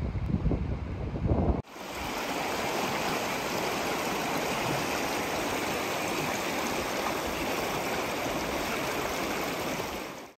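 Shallow stream rushing and splashing over rocks: a steady wash of running water. For about the first second and a half, wind buffets the microphone, then that cuts off abruptly and the water sound takes over.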